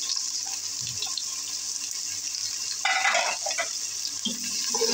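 Sliced onions sizzling in hot oil with whole spices, a steady high hiss, with a brief louder burst about three seconds in as the slotted spoon stirs them.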